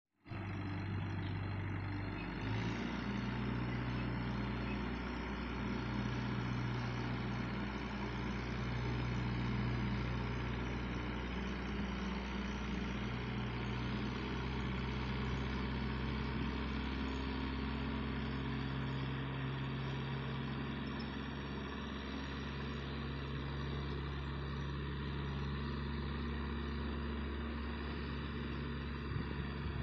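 Vintage Massey Ferguson tractor engines idling steadily.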